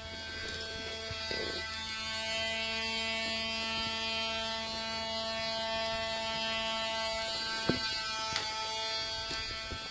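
Dremel rotary tool running steadily at one constant pitch, a motor whine. Two faint clicks sound near the end.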